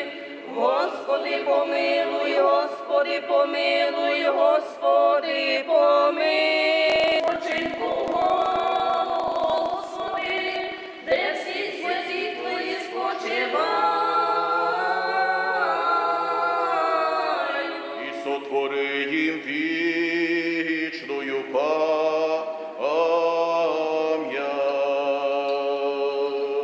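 Priest and congregation singing an unaccompanied hymn together, several voices in unison with held notes. A burst of crackling noise lies over the singing about seven seconds in and lasts a few seconds.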